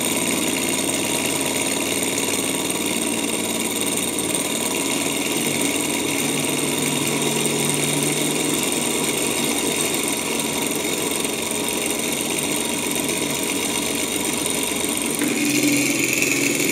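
Small propeller-driven Stirling hot-air engine running steadily on its burner flame, with a fast, even mechanical chatter from its pistons and spinning propeller.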